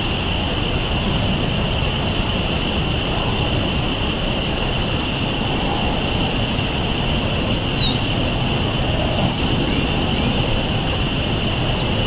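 Steady outdoor rumble, like distant traffic, with a constant high hum, and a few short, high bird chirps that glide in pitch, two close together about seven and a half seconds in.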